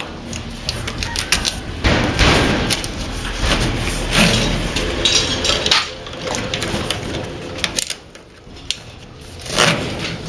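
Hands-on work noise: irregular clicks and knocks mixed with scraping and rustling, in louder stretches with a short lull about eight seconds in.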